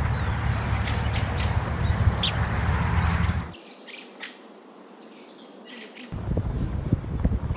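Many birds chirping and calling at once, over a low rumble like wind on the microphone. About three and a half seconds in the rumble drops away and the chirping goes on more thinly. The rumble comes back near the end with a few knocks.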